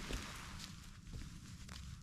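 A hiker's footsteps on a steep trail: a few soft, irregular steps.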